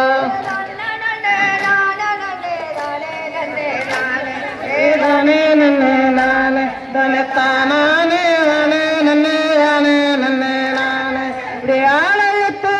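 A Tamil kummi folk song sung in high voices, with long held notes that bend and waver in one melodic line.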